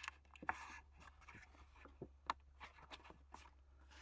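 Faint rustling and light taps of cardboard being handled and pressed together by hand, with a few sharp little clicks scattered through, over a low steady hum.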